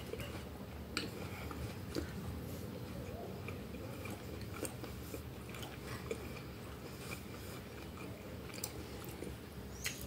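A person chewing a mouthful of food, with soft irregular clicks and smacks.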